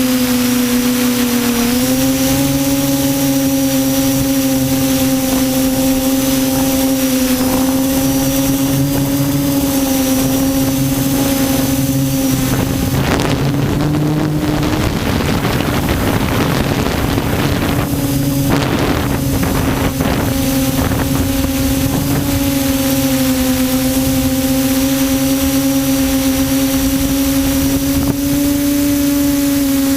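QAV400 quadcopter's motors and propellers humming steadily in flight, the pitch dipping and rising slightly, with a stretch of rushing noise around the middle.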